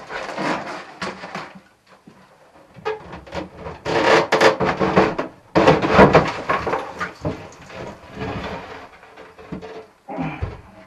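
Clattering and scraping as loose debris and bits of wood are cleared by hand out of a boat's bilge, in irregular bursts with short pauses between.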